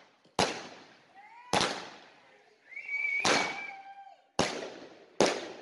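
Fireworks going off: five loud, sharp bangs at irregular intervals of about a second, each echoing away, with a whistling tone just before the third.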